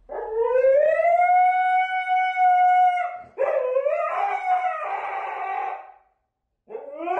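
Siberian husky howling: one long howl that rises and then holds steady for about three seconds, a second wavering howl straight after, and a third rising howl starting near the end.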